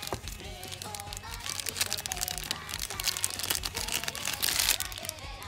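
Thin clear plastic bag crinkling as hands handle and pull open the sealed polybag around a small plastic toy, loudest about four and a half seconds in, over background music with singing.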